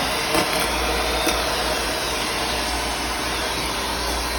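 Panasonic MC-V7325 bagged vacuum cleaner running steadily with its hose tool sucking up small pieces from the floor, with a couple of brief clicks.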